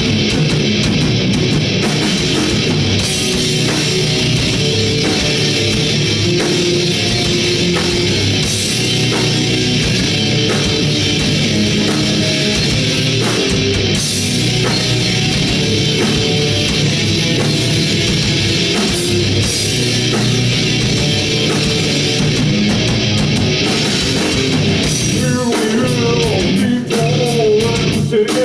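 Loud heavy metal band playing live: distorted electric guitars, bass and a pounding drum kit. Near the end, sliding, wavering high notes come over the top.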